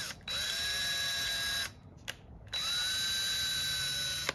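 Cordless drill boring holes into a pine board. The motor runs twice, each time winding up to a steady whine, with a brief blip before the first run and a click in the pause between them.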